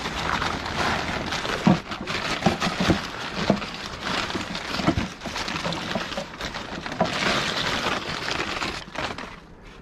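Crumpled brown packing paper and a large paper bag crinkling and rustling as gloved hands rummage through a cardboard box, with a few soft knocks. The rustling dies down near the end.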